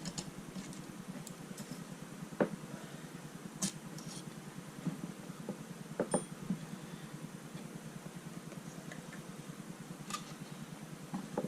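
A few scattered metallic clicks and clinks of hand tools as bolts are taken out of a motorcycle engine's crankcase halves, over a steady low hum.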